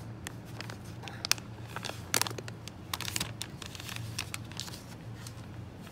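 Paper-and-plastic sterilization pouches holding orthodontic pliers crinkling as they are handled and set down, in a string of short, irregular crackles over a low steady hum.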